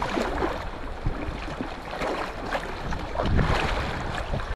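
Wind buffeting the microphone over irregular water splashing around a kayak on choppy water.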